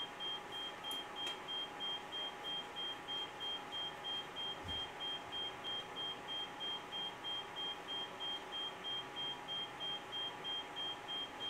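Oscilloscope beeping repeatedly, quiet, high-pitched short beeps at about three a second, a quirk of the instrument.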